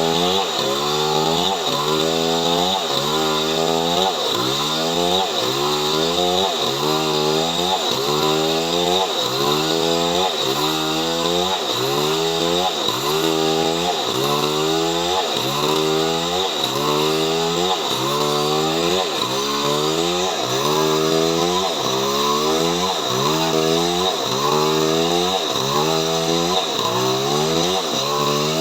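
Chainsaw engine running under load while ripping coconut wood into boards, its pitch rising and dipping in a steady cycle a little more than once a second.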